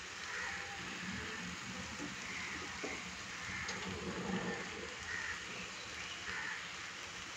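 Faint steady hiss with soft, scattered taps and rustles as handfuls of boiled basmati rice are sprinkled by hand into the pot over fried onions.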